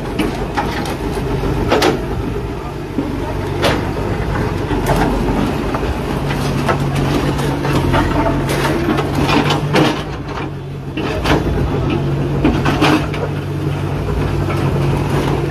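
Diesel backhoe loaders running and working, a steady engine drone that grows stronger about halfway through. Scattered sharp crashes and clatter of demolition debris, metal sheeting and timber, as stalls are knocked down.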